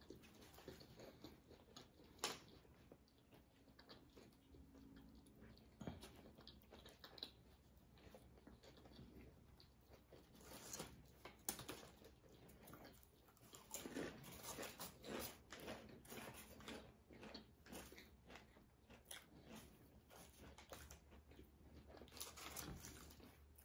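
Faint chewing and irregular crunching of potato chips and a sub sandwich, eaten by two people.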